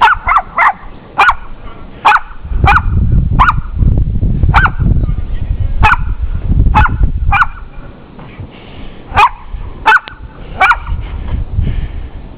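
Pomeranian barking in short, sharp, high yaps, about fourteen at uneven spacing, at the falling snow as if to make it go away. Wind rumbles on the microphone underneath, most strongly in the middle.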